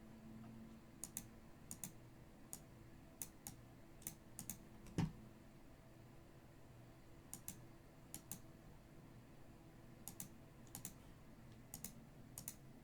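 Faint, irregular keyboard or mouse clicks, some in quick pairs, as someone types on a computer, with a single soft thump about five seconds in.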